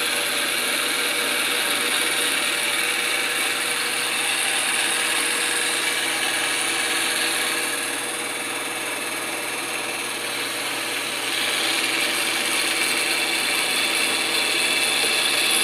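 Milling machine with a Volstro rotary milling head attachment running, its half-inch end mill cutting a workpiece as the head rotates it around a circular path: a steady, dense machining noise that eases slightly about halfway and comes back up.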